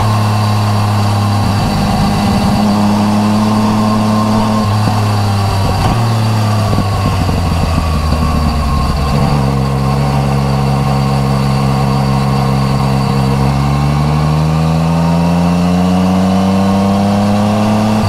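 Yamaha MT-09 Tracer's three-cylinder engine running through an Akrapovič titanium exhaust while riding. It holds a steady note at first, drops and wavers around five to nine seconds in, then rises steadily in pitch over the last few seconds as it accelerates.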